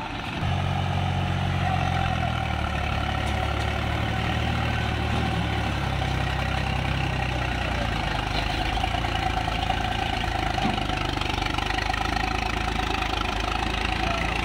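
Swaraj 735 FE tractor's three-cylinder diesel engine running under load as it hauls a sand-laden trailer through wet sand. The engine comes in loud about half a second in, and its pitch steps down twice in the first six seconds before holding steady.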